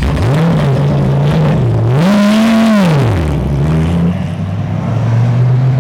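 GT race car's engine revving as the car pulls out of its pit box and accelerates away after a pit stop: the note climbs, dips briefly, climbs higher for about a second, then drops away. A steady engine hum carries on underneath.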